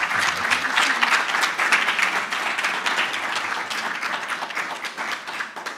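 Audience applauding: many people clapping, loudest at first and gradually dying down near the end.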